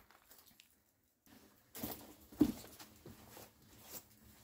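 Hiking boots stepping over rock slabs and grit on the floor of a rock tunnel: uneven footsteps and scuffs that start about a second in, with one heavier step about halfway through.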